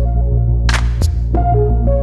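Background music: a synthesizer melody of held notes over a steady bass.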